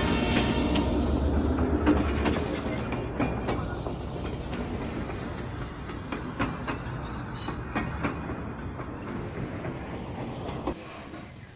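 Train running on the rails, its wheels clattering, slowly fading and then cutting off shortly before the end.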